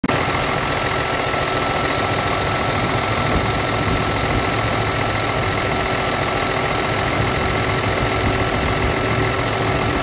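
Scania truck diesel engine idling steadily, heard close up at the open engine bay, with a thin steady high whine over the running.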